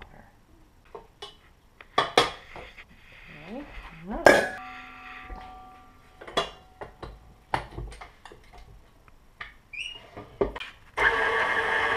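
Metal clinks and knocks as the attachment and stainless steel bowl of a KitchenAid stand mixer are handled, with one loud clank about four seconds in that leaves the metal ringing briefly. About a second before the end the mixer's motor switches on and runs steadily.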